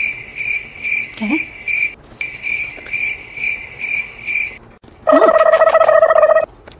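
Cricket-chirping sound effect: a high chirp repeating about two and a half times a second, with a short break about two seconds in. It stops a little after four and a half seconds, and then a loud, flat buzzer tone sounds for about a second and a half and cuts off suddenly.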